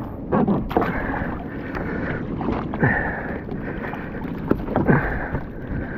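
Splashing and scattered knocks of a large Spanish mackerel being dragged by the tail over the side of a plastic fishing kayak, with wind buffeting the microphone.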